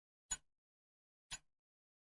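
Clock ticking, one sharp tick each second: two ticks.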